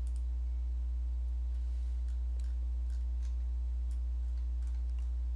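Steady low electrical hum picked up by the microphone, with a few faint, scattered computer mouse clicks.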